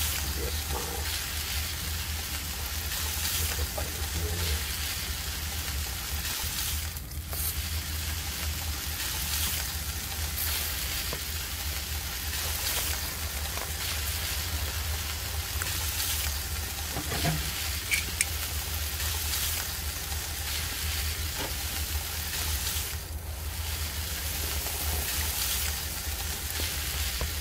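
Lamb shoulder chops and bacon-wrapped perogies sizzling on a charcoal grill: a steady crackle with small pops, over a steady low hum.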